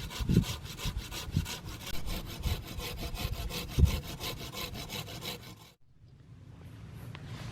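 A saw cutting wood in fast, even rasping strokes, which stop abruptly about three-quarters of the way through.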